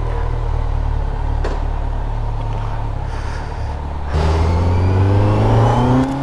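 Kawasaki Z900 inline-four motorcycle engine running steadily while riding, then, about four seconds in, opening up and accelerating with a rising pitch.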